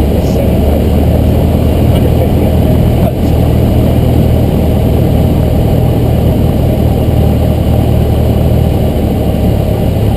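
Cessna 172's piston engine and propeller droning steadily, with a brief dip in level about three seconds in.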